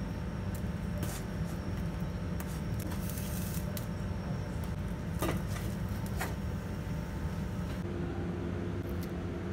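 Gas stove burner running with a steady low rumble while a whole eggplant chars on the open flame, with scattered clicks and crackles from the charring skin and the tongs turning it. Near the end a faint steady hum comes in.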